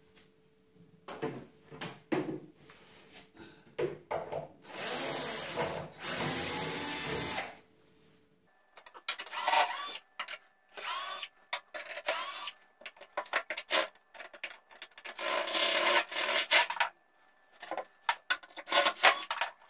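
Cordless drill-driver running in three runs of one to two seconds each, backing screws out of a particleboard cabinet, amid many short knocks and clatters of the panels being handled.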